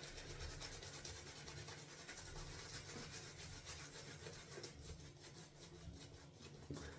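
Synthetic shaving brush mixing soap into lather, a faint, steady rubbing and swishing of the bristles through the paste.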